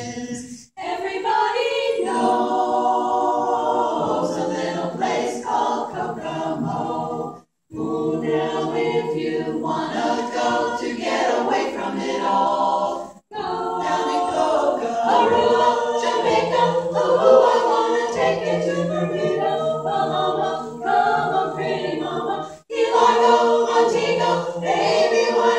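Women's barbershop chorus singing a cappella in four-part harmony, breaking off briefly between phrases four times.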